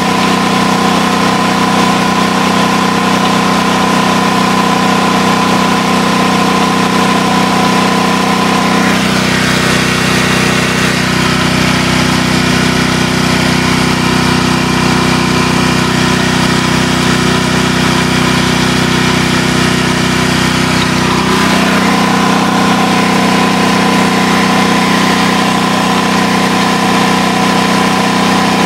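Sportsman 4000LP propane portable generator running steadily with an even engine drone. About nine seconds in, the tone shifts for roughly twelve seconds, then returns to how it sounded at first.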